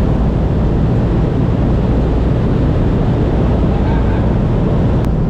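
Steady, loud drone of a C-47 Skytrain's piston engines and propellers heard inside the cabin, with wind rushing past the open jump door.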